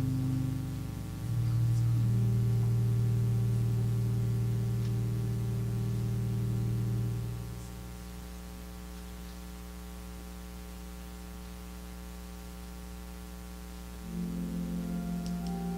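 Quiet keyboard music of long sustained chords, each held several seconds, changing about a second in, softening partway through and changing again near the end, over a steady electrical hum.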